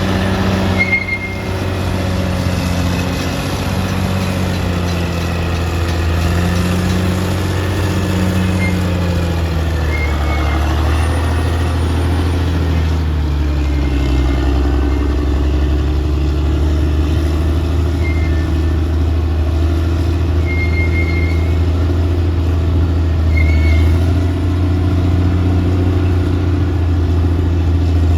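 Caterpillar D6R XL bulldozer's diesel engine running steadily while the machine works, its pitch shifting slightly now and then, with a few short high squeals.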